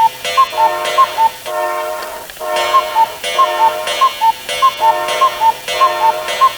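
A repeating electronic alarm-like sound effect: a held, chord-like tone chopped into blocks about half a second long, with quick high bleeps over it, looping over and over.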